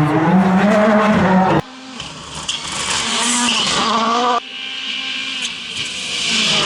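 World Rally Car engines (2017 rules: 1.6-litre turbocharged four-cylinders) at full throttle, pitch rising as they rev up, in three clips cut together. The middle clip carries a loud hiss of tyres on the stage surface.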